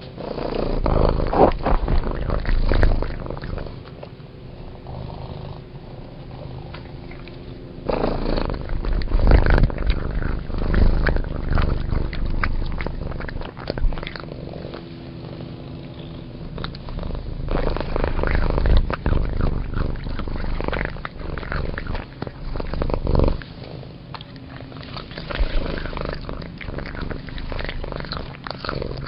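A cat eating dry kibble: crunching and chewing comes in bouts of a few seconds each, with quieter pauses between them.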